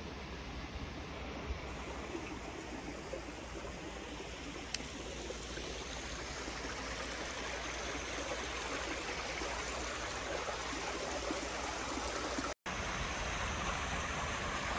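Small rocky stream running beside the path, a steady rushing and trickling of water that grows gradually louder.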